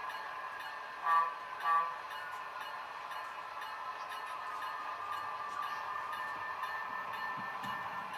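Sound-equipped model diesel locomotive giving two short horn toots about a second in, over the steady hum of its running engine sound, whose pitch drifts slowly. Two short toots are the signal that the train is about to move ahead.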